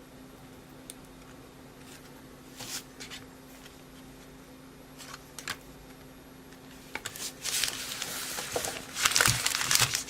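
Baseball card pack wrapper crinkling as it is handled and opened: a few short rustles at first, then steady crinkling over the last three seconds, loudest near the end.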